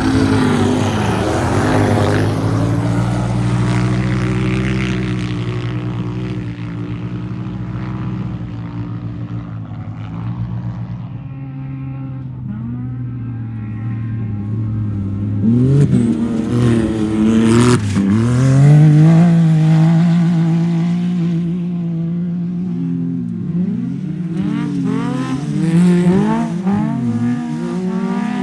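Off-road race vehicles' engines revving up and down, several at once. One passes close about eighteen seconds in, loudest there, and its pitch drops sharply as it goes by.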